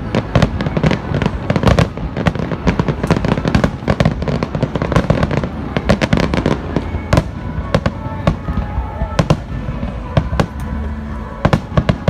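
Fireworks finale barrage: a dense, continuous volley of shell bursts and crackling reports, many bangs a second, with music playing underneath.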